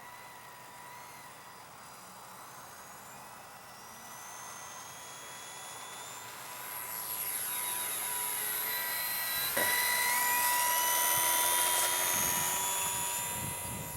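Electric motor and propeller of a Parkzone Ultra Micro P-40 Warhawk RC plane in flight: a high-pitched whine that rises in pitch and grows louder as the plane comes by, peaking about ten seconds in and then fading. A single sharp click is heard partway through.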